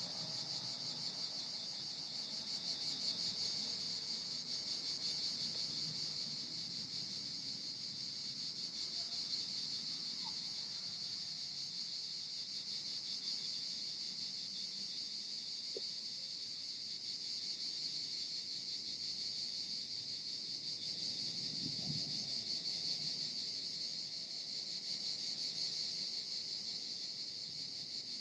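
A dense, steady chorus of insects trilling high and continuously, with a faint low rumble underneath.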